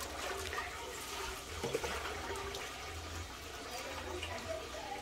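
Water splashing and trickling into a concrete wash basin as cooked elbow macaroni is rinsed in a plastic strainer, the water draining through the basket.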